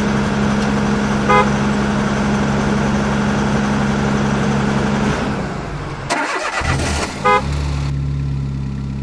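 Truck engine sound effect running steadily, with a short horn beep about a second in and another near seven seconds. The engine sound breaks off near six seconds, and a lower engine drone takes over.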